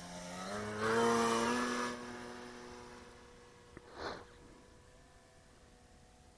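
Electric motor and propeller of a FLEX Innovations Cessna 170 RC plane on a 6S battery, a whine that rises in pitch over the first second, is loudest for about a second, then holds steady while fading away. A short sharp sound about four seconds in.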